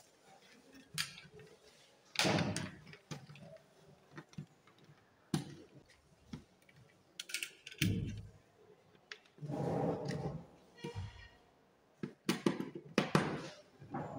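Irregular plastic knocks, clicks and scrapes as a twin switched socket faceplate is handled and pressed onto a plastic surface-mount back box, a screwdriver knocking against it now and then. The longest scraping sounds come about two seconds in and again around ten seconds, with a quick run of clicks near the end.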